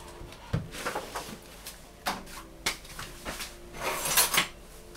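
A wooden cutting board and kitchen items being moved and set down on the worktop: scattered light knocks and clatters, loudest about four seconds in.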